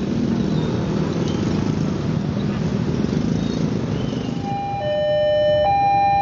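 A KRL Commuter Line electric train running past on the rails, a steady rumble that dies down after about four seconds. From about four and a half seconds in, an electronic warning tone sounds, switching between two pitches.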